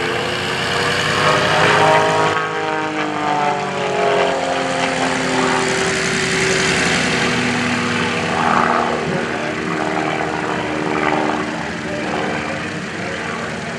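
Pitts S-1S aerobatic biplane's piston engine and propeller running overhead during aerobatics. The pitch slides up and down in the first few seconds, loudest about two seconds in, then the sound holds steadier.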